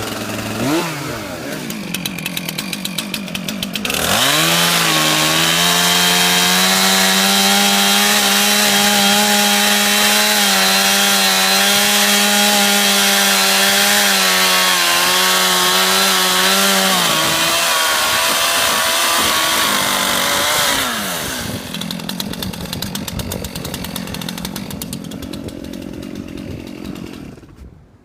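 Two-stroke chainsaw idling with a quick blip of the throttle, then held at full throttle from about four seconds in, cutting through the tree trunk with a steady high engine note. It drops back to idle about twenty seconds in and fades out near the end.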